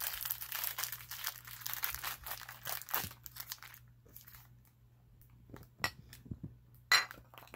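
Plastic candy wrapper crinkling as it is pulled open from around a coconut candy, for about three seconds, then a few faint rustles and two sharp clicks near the end.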